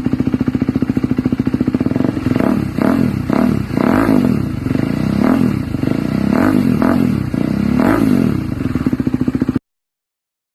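KTM Duke 200's single-cylinder four-stroke engine through an SC Project S1 slip-on exhaust. It idles with a steady pulse, then is blipped about eight times in quick short revs, each climbing and dropping back to idle, before the sound cuts off suddenly near the end.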